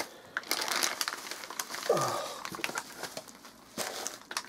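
Bubble wrap and a plastic bag rustling and crinkling as a heavy toroidal transformer is worked out of its packing, with scattered crackles. About two seconds in there is a short sound that falls in pitch.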